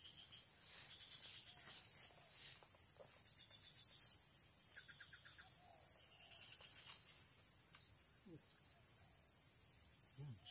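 Steady high-pitched insect chorus of crickets or cicadas, with a few short rapid chirping trills around the middle.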